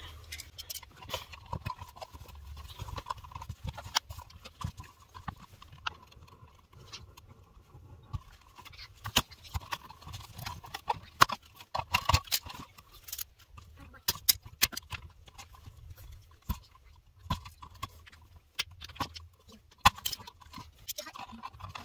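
Irregular small clicks, taps and snips of hands-on electrical wiring: pliers working copper wire ends, with wires and a plastic receptacle knocking against a plastic wall box.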